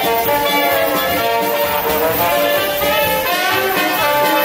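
A live band playing, led by trumpet with other brass, in a swing or jazz style.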